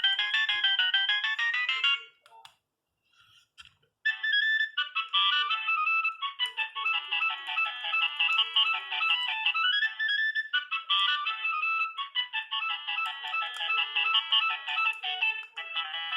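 Nokia 3510 mobile phone playing its built-in polyphonic ringtones: one tune ends about two seconds in, and after a short pause another tune with several notes at once starts about four seconds in.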